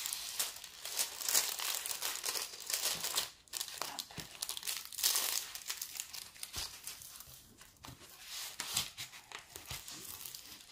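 Clear plastic sheet over a diamond-painting canvas crinkling and crackling as hands press and smooth it flat. It is louder in the first few seconds, drops out briefly, comes back strongly around five seconds in, then goes softer.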